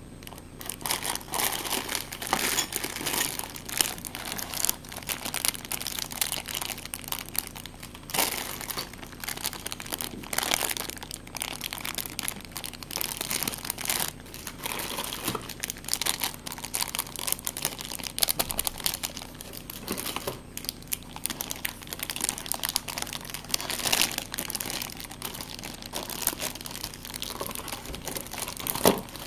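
Clear plastic bags crinkling and rustling without a break as the bagged parts of a miniature drum kit are handled and unwrapped.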